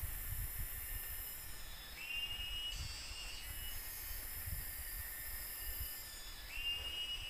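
Forest insects, cicadas among them, shrilling in layered high-pitched drones that stop and start, with a rising call twice. An uneven low rumble runs beneath.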